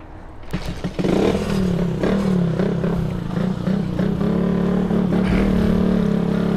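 Honda CG 125 Today motorcycle's single-cylinder engine starting after a few clicks, catching about a second in and then running steadily.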